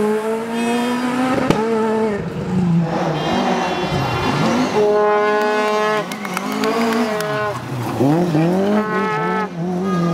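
Rally cars driven flat out on gravel, one after another: engines revving high and dropping sharply in pitch at each gear change and lift-off. The later car is a historic Opel Ascona.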